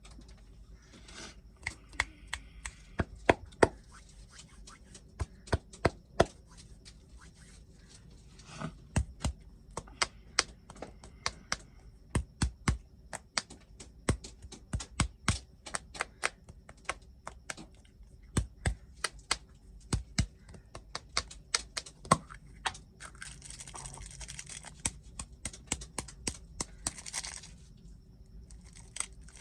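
Snack packaging being handled and unwrapped: crinkling and tearing rustles, with many sharp, irregular crisp clicks and snaps, several a second at times. A longer stretch of rustling and tearing comes near the end.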